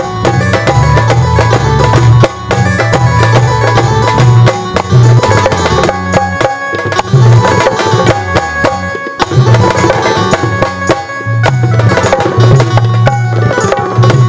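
Dholak played by hand in a steady, driving rhythm, its low bass head booming under the band's held melody notes: an instrumental break in a live Indian stage song.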